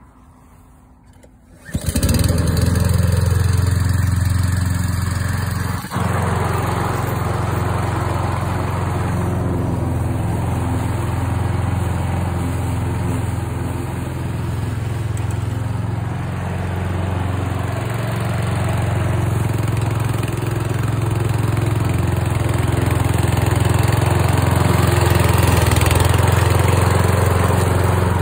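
Stihl RM 650 V lawnmower's Kohler petrol engine starts up about two seconds in, then runs steadily at mowing speed while the mower is pushed through grass.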